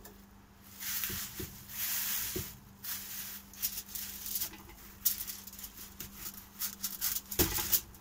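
Plastic bag rustling and crinkling in irregular bursts, with a few light clicks of utensils, and a louder knock near the end.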